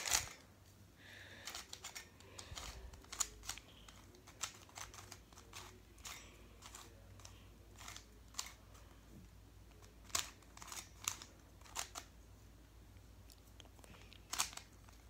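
Plastic barrel cube, a 3x3 shape mod, being turned by hand: faint, irregular clicks and scrapes of its plastic layers, a few sharper snaps among them. The cube is new and feels dry, unlubricated.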